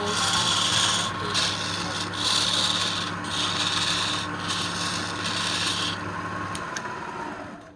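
Abrasive rubbing on wood in four long strokes with short pauses between them, over a steady machine hum that stops near the end.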